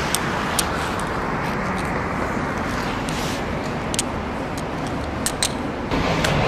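Steady rushing noise of distant jet engines, with a few sharp clicks. About six seconds in, a lower engine hum comes in from a taxiing airliner.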